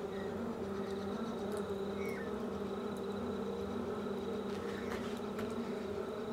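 A steady low buzzing hum with a faint high whine above it, and a few faint bird chirps.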